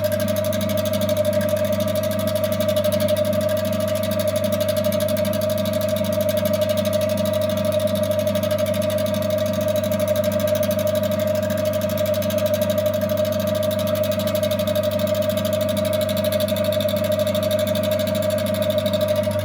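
Electric motor of a Primus Mini vintage single-tub washing machine running with a steady low hum. It switches on just before this stretch and cuts off at the very end.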